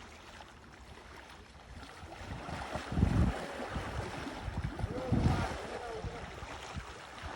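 Water splashing and sloshing around a swimming baby elephant, with two heavier surges about three and five seconds in.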